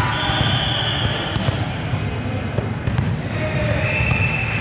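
Indoor volleyball gym sound: a volleyball thudding on the court amid a hubbub of players' voices. Two short, steady high-pitched tones sound, one near the start and one near the end.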